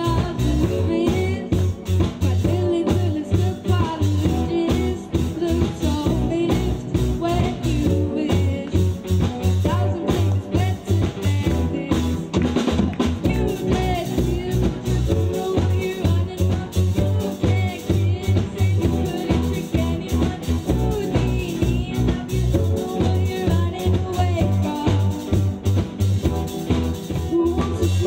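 A live rock band playing a song: a young woman sings lead over electric guitar, electric bass and a drum kit keeping a steady beat.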